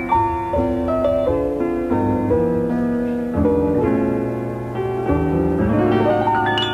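Jazz piano playing an unaccompanied intro: chords with a moving melody line over low left-hand notes.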